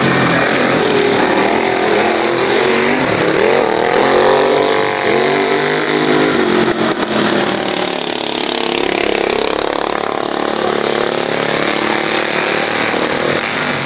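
Several racing lawn mower engines running hard, their pitch rising and falling as the mowers throttle up and back off around the track.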